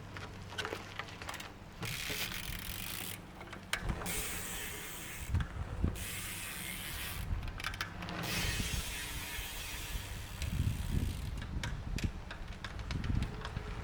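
Hope Pro 4 single-speed rear hub freewheeling: its 88-engagement-point pawl ratchet gives a fast, loud clicking buzz. It comes in about four spins, the last and longest of about three seconds, with short pauses between.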